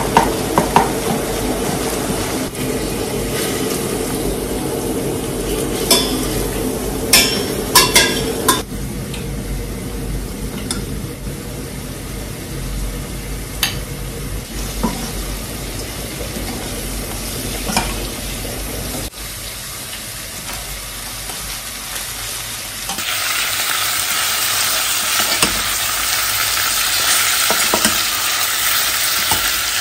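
Meat frying in a pan while a spatula stirs and scrapes it, with a few sharp clicks of the utensil on the pan. About two-thirds of the way through a louder, hissing sizzle starts as chunks of meat and yellow split peas fry in a steel pot.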